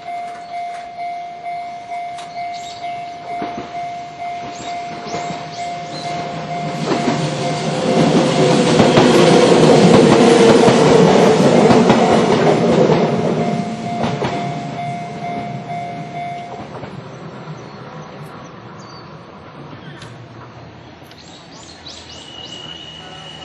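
Japanese level-crossing bell ringing its repeated 'kan-kan' a little over twice a second as a Kintetsu electric train passes. The train's rumble and wheel noise swell to their loudest in the middle and then fade, and the bell stops about two-thirds of the way through.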